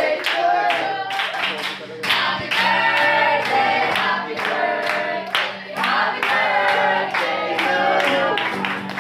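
A group of people singing together and clapping along in time, about two claps a second.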